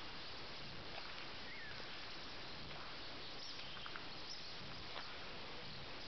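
Quiet rural outdoor ambience: a steady hiss with a few faint, short bird chirps.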